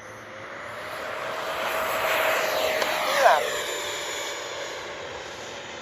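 Electric ducted-fan jet, a 70mm E-flite F-16, flying: a rushing whoosh with a steady fan whine that grows louder to a peak two to three seconds in, then fades as it moves away. A brief voice-like sound cuts in about three seconds in.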